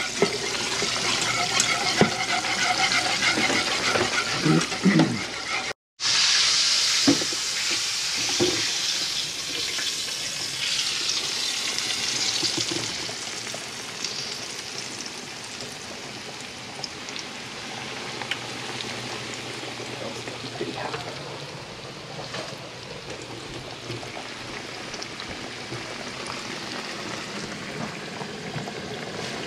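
A whisk clicking against a saucepan while stirring a cream sauce. After a sudden cut, a floured chicken cutlet frying in oil in a cast iron skillet: a steady sizzle, loudest at first and then quieter.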